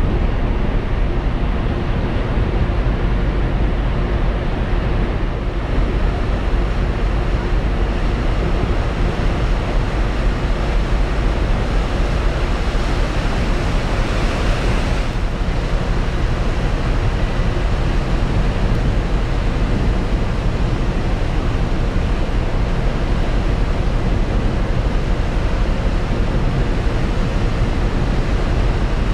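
Wind buffeting the microphone on a moving ship's open deck over the steady rush of the sea and wake, with a faint steady hum underneath. About halfway through, a brief louder hiss of spray.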